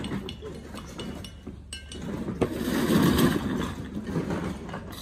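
Hard clinks and knocks of building materials and tools being handled by hand, with a longer gritty scraping stretch about two and a half seconds in.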